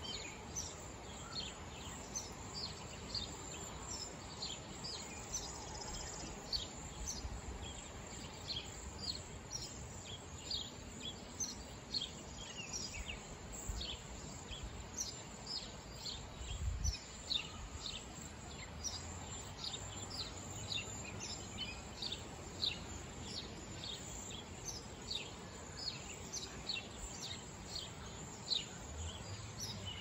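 A flock of cedar waxwings calling: a steady stream of short, thin, high-pitched notes, two or three a second, over faint background noise.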